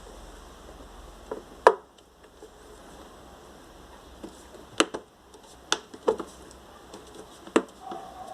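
Scattered sharp clicks and knocks of parts and tools being handled on a workbench, about six in all, the loudest about a second and a half in. A faint low hum stops with that loudest knock.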